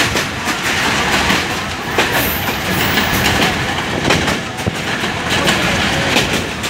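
Passenger train coach running at speed, heard from its open doorway: a steady rumble and rush of wind, with wheels clicking over the rail joints again and again.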